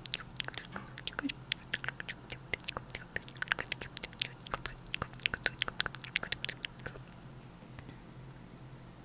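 ASMR mouth sounds made right into a clip-on microphone cupped at the lips: quick, irregular wet clicks and pops ("tk tk", "pk pk"), stopping about seven seconds in.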